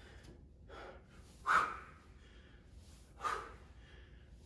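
A man breathing hard through a set of bodyweight squats, with a short, sharp exhale on each rise from the squat, about every one and a half to two seconds.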